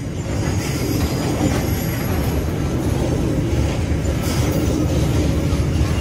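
Loaded pulp boxcars of a freight train rolling past close by: a steady heavy rumble of steel wheels on the rails, with a few faint clicks.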